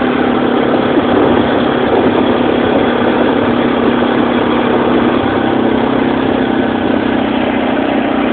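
Kymco Maxxer 450i quad's engine running at a steady, even speed while riding over a snowy track, a constant drone with no revving.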